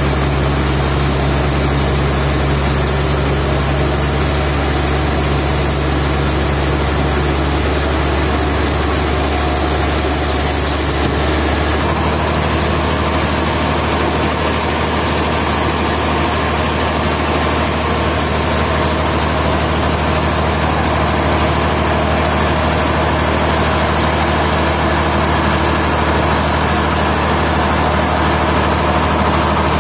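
Sawmill engine running steadily, a loud low hum that shifts abruptly in tone about eleven seconds in.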